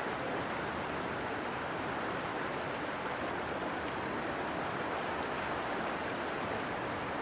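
Steady rushing of fast-flowing river water as a loaded inland cargo ship passes, with no distinct engine note standing out.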